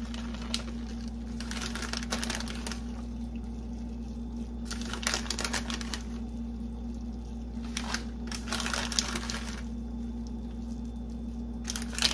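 Several short bursts of clicking, rattling and scraping from kitchen work at the pot as Parmesan is added to the Alfredo sauce, over a steady low hum.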